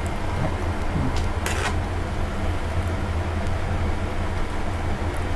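Steady low machine hum with a few short clicks, the strongest about one and a half seconds in.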